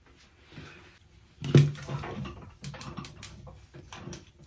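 Irregular soft taps, clicks and rustling of hands handling things close to the microphone, with one sharper knock about a second and a half in.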